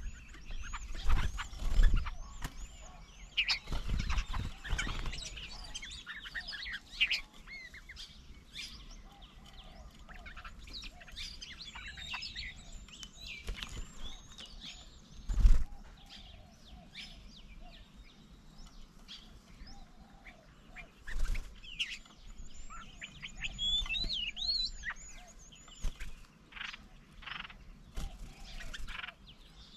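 Several birds at a garden bird table calling and chirping, with many short rising and falling whistles overlapping throughout. A few dull low thumps break in, the loudest about halfway through.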